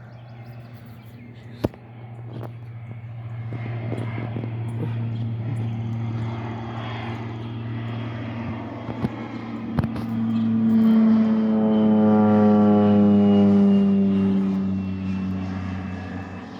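Propeller engine of a low-flying crop-spraying airplane passing overhead: the drone grows louder, peaks about eleven to fourteen seconds in, and drops in pitch as the plane goes by.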